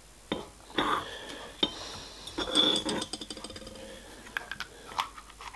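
Small machined steel parts clinking and scraping together as the spiral-grooved throttle shaft is fitted into its mating part. There are several sharp clinks, a short metallic ring about halfway through, and a quick run of fine clicks just after it.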